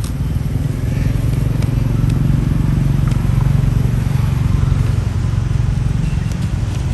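A small engine running steadily: a loud, low rumble that swells a little in the middle.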